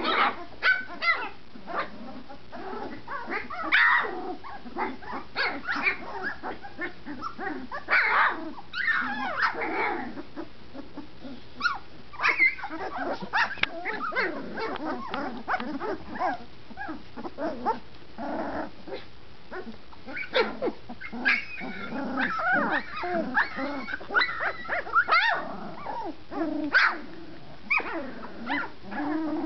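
A litter of 20-day-old puppies barking and yelping as they play together, many short calls overlapping in irregular bursts. These are young puppies just finding their voices.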